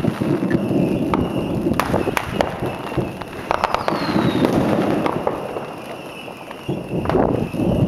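Fireworks display: aerial shells bursting in an irregular series of sharp bangs over a constant rumble, with a brief falling whistle about halfway through.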